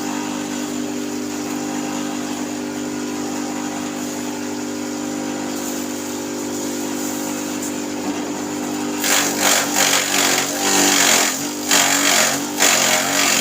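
Homemade grass chopper powered by a small water-pump engine, the engine running at a steady pitch. About nine seconds in, an uneven, louder rasping noise from the chopper joins the engine.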